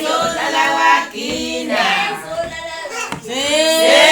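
A group of voices, mostly women's, singing together with long held notes that slide in pitch.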